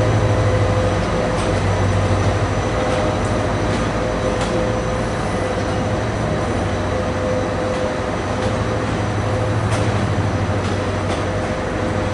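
Rangpur Express passenger train running along the track: a steady loud rumble of wheels and carriages, with scattered clicks over the rail joints and a faint steady whine.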